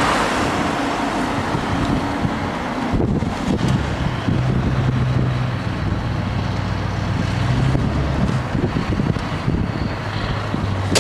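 Scania R500's V8 diesel running at low revs with a deep, steady rumble as the truck slowly turns. Wind buffets the microphone throughout and dominates the first few seconds, until the engine note comes through clearly about four seconds in.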